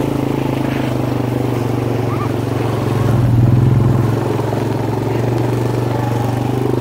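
ATV (four-wheeler) engine running steadily under way, swelling louder for about a second around three seconds in before settling back.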